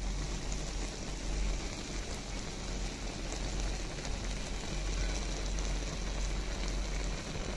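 Curry noodle broth with prawns boiling in a pot: a steady bubbling and crackling.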